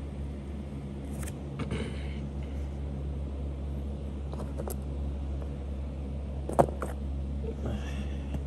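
Small handling noises from unpacking a plastic HO scale model locomotive: light rustles and clicks, with one sharp click about two-thirds of the way through, over a steady low hum.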